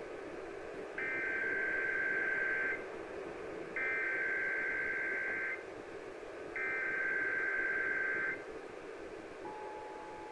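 Emergency Alert System SAME header data burst broadcast three times over AM radio: three buzzy digital warbles about a second apart, over steady radio hiss. Near the end a steady tone starts, the beginning of the EAS attention signal.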